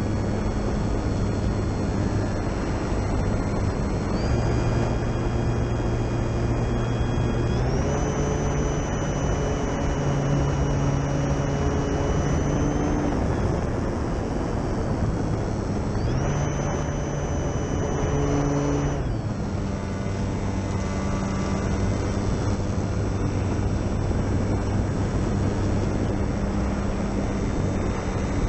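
Durafly Tundra RC plane's electric motor and propeller running in flight: a whine that steps up and down in pitch several times as the throttle changes, over a steady rushing noise.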